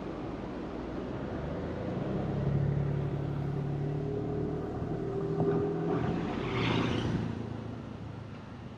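A motor vehicle passing slowly at close range. Its low engine hum builds from about two seconds in, peaks with a rush of tyre noise around seven seconds, then fades.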